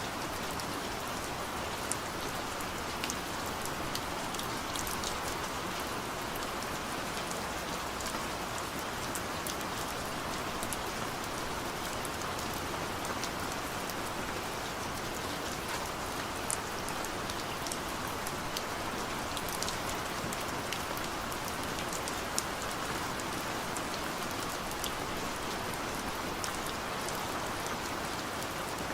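Steady rain, an even hiss with scattered individual drops ticking sharply throughout.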